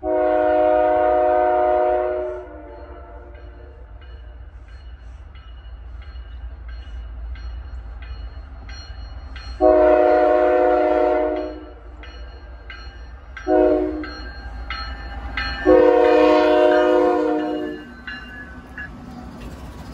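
A CSX freight locomotive's air horn sounding the grade-crossing signal: two long blasts, a short one, then a long one, over the low rumble of the approaching train. Faint regular dings sound between the blasts.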